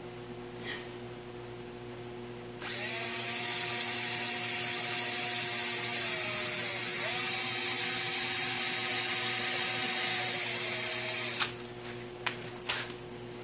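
Cordless drill running for about nine seconds, boring a hole into the metal flange of a brake-drum stand base; its motor whine drops in pitch briefly twice as the bit loads up. A few short clicks and knocks follow after it stops.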